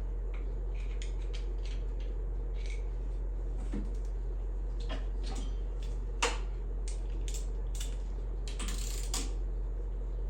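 Hand tools and engine parts clicking and clinking during cam and timing chain work, with a short ratchet-like rasp near the end, over a steady low hum.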